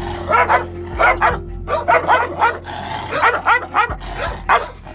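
Chained dogs barking over and over at approaching strangers, about two to three barks a second, fearful and aggressive.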